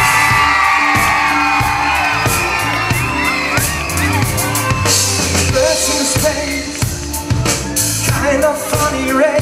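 Live band playing a song's instrumental intro on drum kit and bass, with the audience cheering and whooping over the first few seconds.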